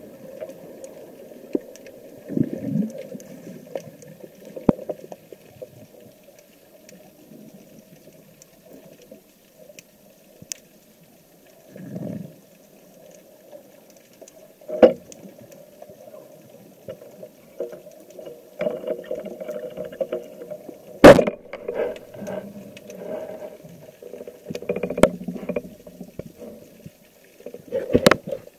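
Muffled underwater water noise picked up by a camera on a diver's speargun, with a few low whooshing swells and occasional sharp knocks and clicks, the loudest about two thirds of the way through.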